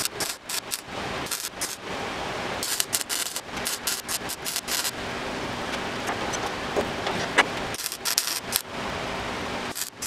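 MIG welder crackling in several short bursts with brief pauses, as drilled holes in a sheet-steel floor pan are filled with weld one at a time.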